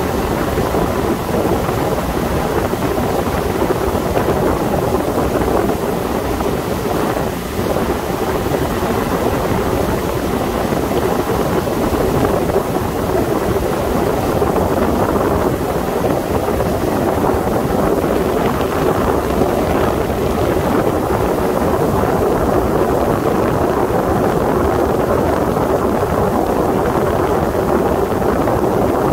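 Sea Ray 21 motorboat under way: a steady rush of wind buffeting the microphone over the boat's running engine and water rushing along the hull, even and unbroken throughout.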